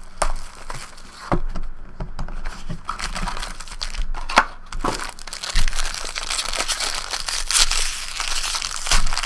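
Hands crinkling and pulling open a silver foil trading-card pack: sharp crackles of the foil throughout, growing into a denser crackling from about halfway.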